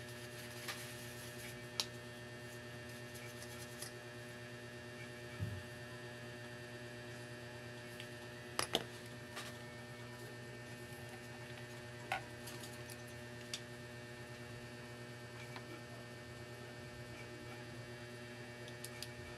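Steady electrical mains hum, with a handful of sharp clicks and taps scattered through it, the loudest a quick double click near the middle.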